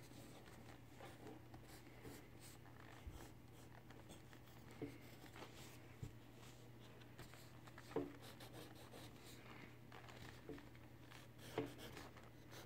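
Pencil on paper, faint scratchy sketching and shading strokes, a little louder twice near the end, over a steady low hum.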